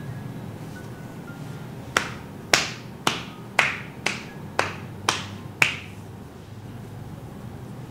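Eight sharp hand strikes in a steady rhythm, about two a second, each with a short ring of the room: percussive massage slaps or claps by the masseuse's hands.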